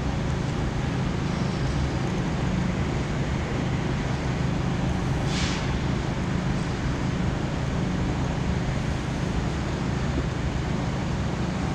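Steady low rumble of engines, with a short hiss about five seconds in.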